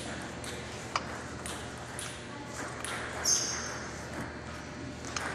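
Light clicks of a table tennis ball, about one every half second in the first two seconds, then a short high squeak a little after three seconds in.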